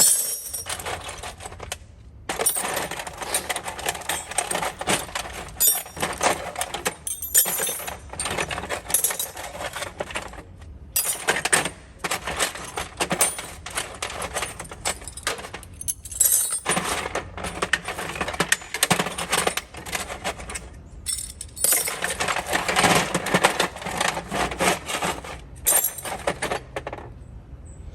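Metal wrenches and other hand tools clinking and clattering as they are lifted out of a toolbox drawer and set down in a pile, in a steady run of clanks with a few short pauses.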